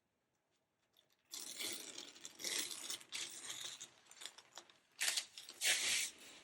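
Laptop packaging being handled: tearing, crinkling and rustling in several bursts, starting about a second in.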